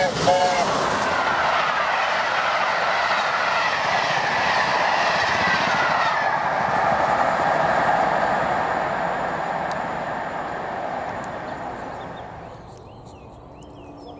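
LNER A4 Pacific 4464 Bittern passing at about 90 mph. The last half-second of its chime whistle is followed by the loud rush of the locomotive and its coaches going by, which fades away over the next dozen seconds. Birds chirp faintly near the end.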